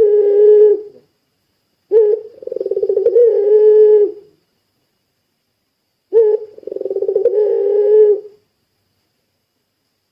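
Puter pelung turtle dove calling: the end of one call, then two complete long calls about four seconds apart. Each call is a short opening note followed by a long trembling, rolling coo of about two seconds that lifts slightly near its end.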